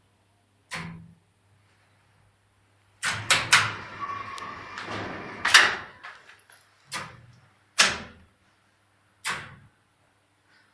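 A series of sharp knocks and bangs: one early, a quick cluster of several about three to five seconds in, then three single bangs spaced about a second apart, over a faint low hum.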